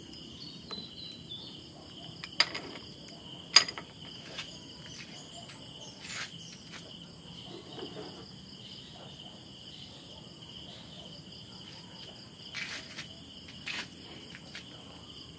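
Steady high chirring of insects, with a few sharp metal clanks, the loudest about two and a half and three and a half seconds in, as a steel bearing separator is handled and clamped in a cast-iron bench vise.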